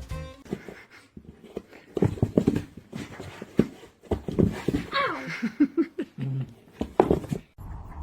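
A dog panting in short irregular breaths, with a few short pitched sounds about five to six seconds in.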